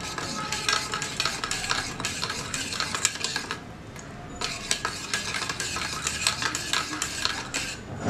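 Metal spoon stirring dry yeast and sugar into warm water in a steel bowl, clinking and scraping against the bowl's sides, with a short pause about halfway.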